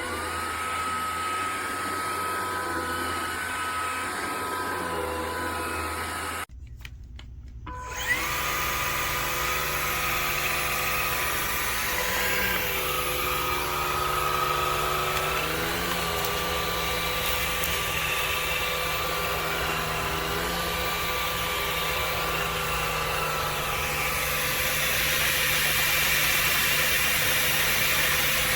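Levoit cordless stick vacuum running with a steady motor whine. About six seconds in it cuts out, and about a second and a half later it starts again, its whine rising as the motor spins back up.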